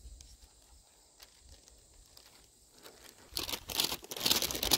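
Adhesive backing paper being peeled and crinkled off a foam roof closure strip: a burst of crackling, tearing noise starting about three seconds in, after a few faint ticks.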